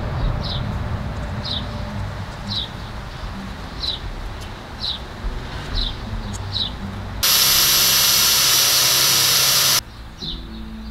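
A small bird chirping, short calls about once a second. Past the middle, a loud steady hiss starts abruptly and stops just as abruptly about two and a half seconds later.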